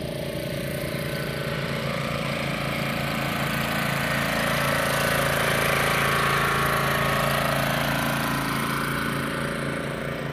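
Small engine of a ride-on greens roller running steadily as it rolls a putting green. It grows louder as the roller passes close by about midway, then fades.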